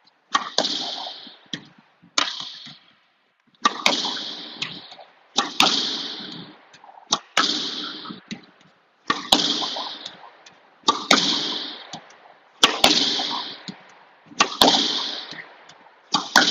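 A squash ball is hit repeatedly with a Tecnifibre Carboflex X-Top racket in a solo driving rally. A sharp crack of racket on ball, then the smack of the ball off the front wall, comes about every two seconds, each ringing briefly in the court.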